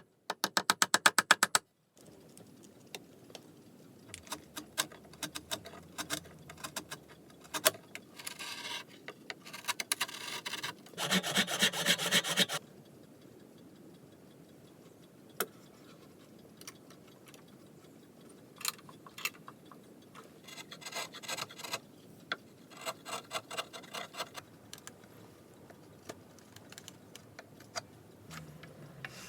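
Hand tools working mahogany chair wood: bursts of rapid rasping, rubbing strokes that stop and start, with scattered clicks and knocks of wood between the bursts.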